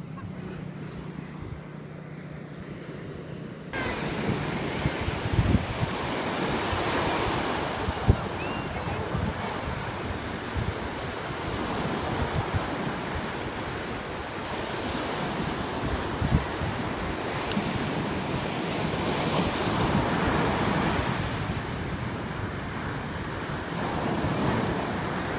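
Ocean waves washing on a shore with wind buffeting the microphone, swelling and ebbing in slow surges. A quieter steady low hum in the first few seconds gives way abruptly to the surf about four seconds in.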